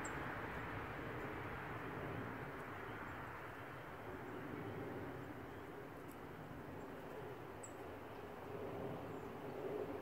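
Steady outdoor background rumble and hiss, with two faint, short, high bird chirps, one at the start and one about three-quarters of the way through.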